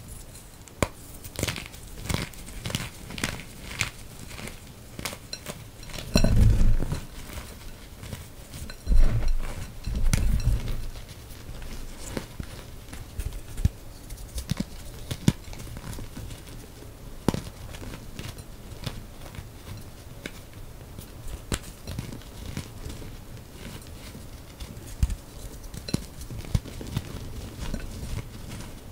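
Reformed gym chalk crushed and crumbled between bare hands over a bowl of chalk powder: dry, crunchy crackling and crumbling throughout. There are a few heavier dull thumps, about six, nine and ten seconds in.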